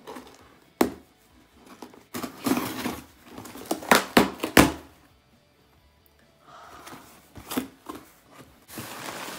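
Cardboard parcel being opened by hand: packaging tearing and rustling in irregular bursts, with several sharp snaps about four seconds in.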